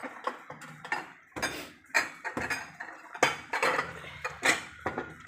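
A wooden spatula stirring noodles in sauce in a stainless steel pot, with irregular knocks and scrapes against the pot's sides.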